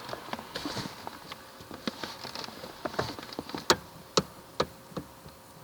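Knocking in a Toyota Camry's steering: a run of light clicks, then four sharper knocks about half a second apart in the second half. This is the steering knock that the owner is trying to track down.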